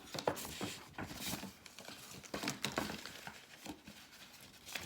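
Gift packaging being handled and opened: rustling and crinkling with scattered small clicks and taps.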